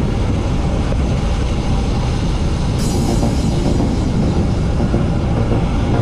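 Background music over a loud, steady low rumble of wind buffeting an action camera's microphone while cycling.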